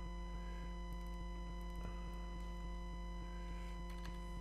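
Steady electrical mains hum on the recording, with a few faint clicks.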